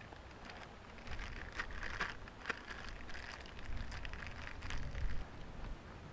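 Dry-grass tinder bundle rustling and crackling as it is handled and swung to nurse a bow-drill ember into flame, over a low rumble.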